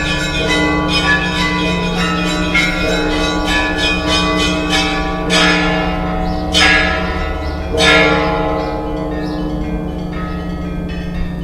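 Orthodox church bells ringing a peal: small bells struck in quick, overlapping patterns over the sustained hum of a large bell. Three louder strokes ring out about halfway through.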